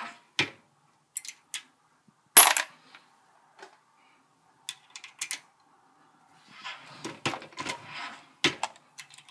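Metallic clicks and clinks of 7.62x25mm Tokarev brass cases being handled and sized on a single-stage reloading press. The loudest is a single ringing clink about two and a half seconds in, and a denser run of knocks and rattles comes near the end.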